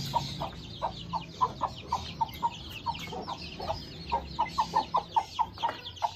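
Desi mother hen clucking in runs of short, quick clucks, several a second, with a brief pause partway through. Her newly hatched chicks peep high and continuously underneath.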